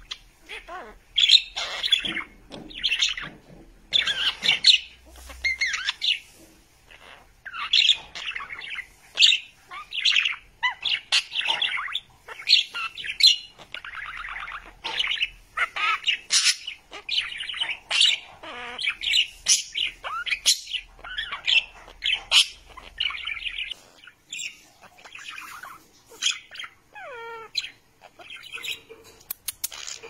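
Budgerigars chattering and warbling: a fast, almost unbroken run of chirps, squawks and short whistles with brief pauses. Near the end comes a whistle that glides downward.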